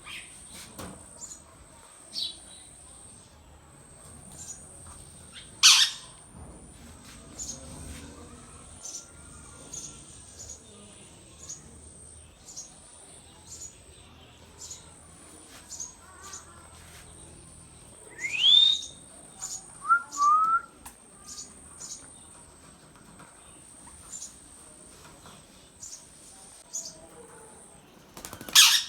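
Indian ringneck parrot calling: many short high chirps, a loud harsh squawk about six seconds in and another near the end, and a rising whistle followed by two short rising notes about two-thirds of the way through.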